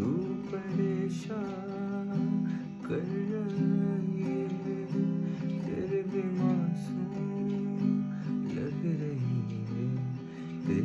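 Song music led by strummed acoustic guitar chords, in an instrumental passage between sung lines.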